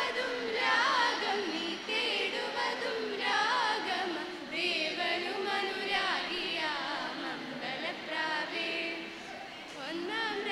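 A group of young men and women singing a song together into a microphone, several voices at once.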